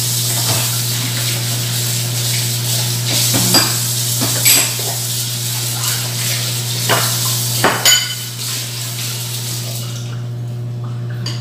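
Dishes and cutlery being hand-washed at a kitchen sink under a running tap: a steady hiss of water with sharp clinks of crockery and utensils, several of them in the middle. The running water stops near the end, leaving a steady low hum.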